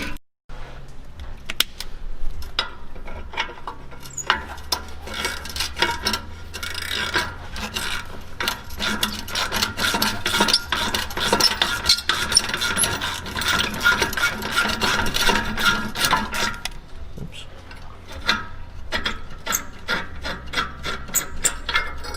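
Hand socket ratchet clicking rapidly as it backs off the 13 mm bolts holding the exhaust resonator, with metal rubbing and rasping against the exhaust hardware.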